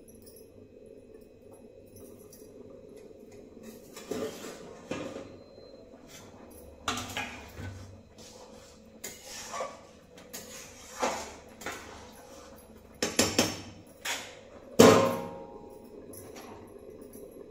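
Separate metal clanks, knocks and scrapes of a spatula and lid against a stainless-steel kadhai as cooking rice is uncovered and stirred. The loudest is a ringing clank near the end.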